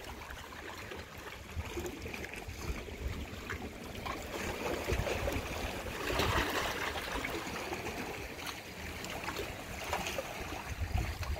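Small waves lapping and trickling among shoreline rocks, a little louder about six seconds in.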